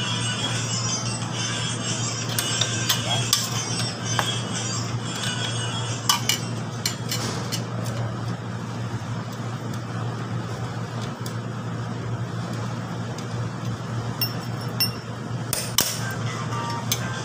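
Metal tools clinking and tapping on motorcycle rear-wheel and brake parts as the wheel is taken apart, a few sharp knocks standing out, over steady background music.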